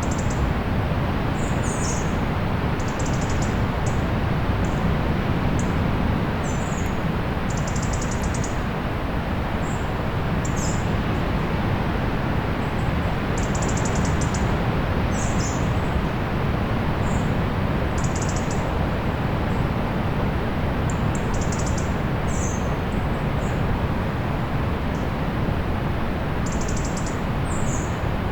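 Steady wash of surf on a beach, with small birds chirping in short high calls every second or two.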